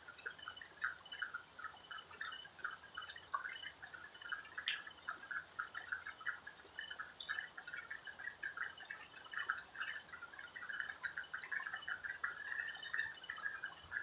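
Night chorus of frogs: a dense stream of short, overlapping clicking calls, with a faint higher chirping that comes and goes.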